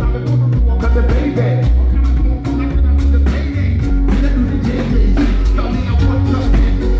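Live band playing, with a heavy bass line and regular drum hits.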